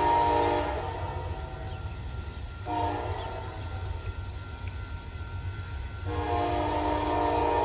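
Amtrak P42 locomotive's Nathan K5LA five-chime air horn sounding a chord over the low rumble of the train: a long blast ends under a second in, a short blast comes about three seconds in, and another long blast starts about six seconds in, the long-short-long ending of a grade-crossing signal.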